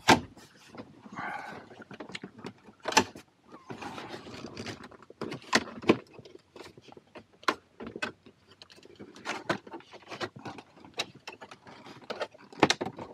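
Hard plastic dashboard trim being wiggled and pushed into place by hand: scattered sharp clicks and knocks of plastic with light rustling between them.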